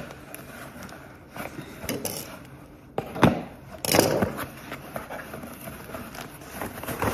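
Cardboard box being opened by hand: packing tape and flaps ripped and scraped, with a sharp rip about three seconds in and a louder one about a second later.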